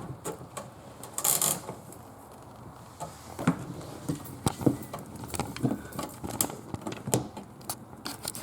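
Handling noise from working a dishwasher drain hose onto its fitting: scattered light clicks and knocks, with a brief scrape about a second in.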